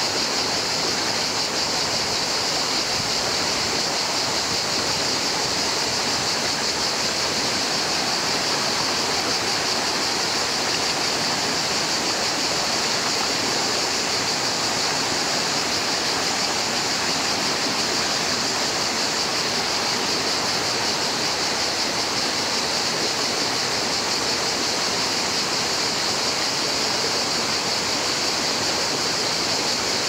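Shallow river running over stones and small rapids: a steady rush of water.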